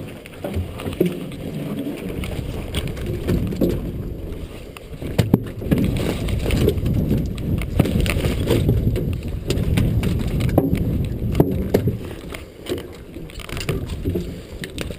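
Muffled knocks and clunks over a low rumble: a salmon gillnet being handled and picked over the side of a boat, heard through a waterproof camera case.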